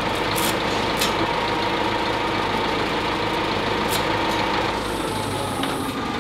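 Forklift engine running steadily at idle, with a few sharp metal clinks about half a second, one second and four seconds in.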